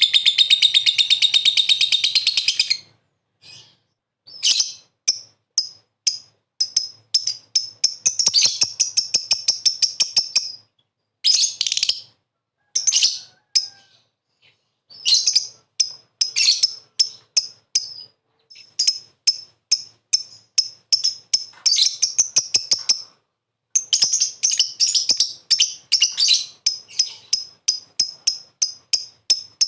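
Lovebird calling: a long, rapid chattering trill (ngekek), then runs of short, sharp, high chirps in quick series with brief breaks of silence between them.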